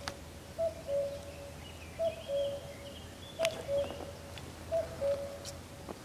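Common cuckoo calling its two-note cuckoo, the second note lower, four times about every second and a half. Faint higher bird chirps come in the middle.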